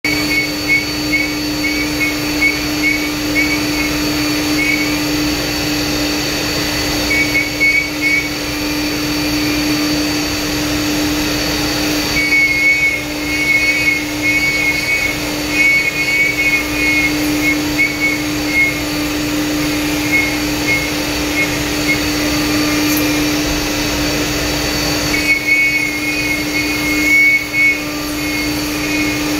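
CNC router spindle and its dust-extraction vacuum running steadily while a small end mill cuts a rough pass into HDU (high-density urethane) sign board. A steady hum runs underneath, with a rapid high warble from the cutting that comes and goes in stretches as the bit moves through the cut.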